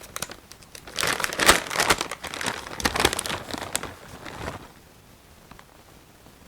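Plastic bag of mozzarella cheese crinkling and crackling as the cheese is shaken out, for about four seconds, then it stops.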